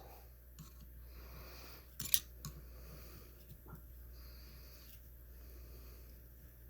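Quiet steady hum with a few small metallic clicks, the sharpest about two seconds in, as a tool works against the small parts of a shotgun's trigger assembly to pull a stuck spring or pin loose.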